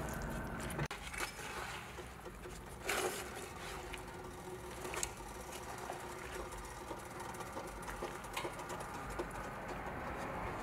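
Metal tongs clicking and knocking a few times against a stainless steel dye pot as wet, dye-soaked fabric is lifted out, over a steady low hum.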